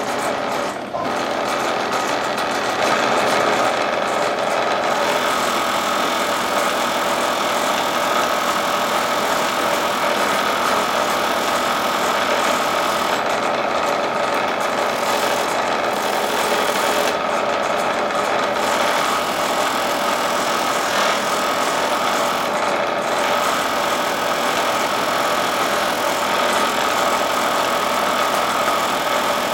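Old bench buffing wheel running steadily with a piston held against it for polishing; the worn wheel rattles as it spins.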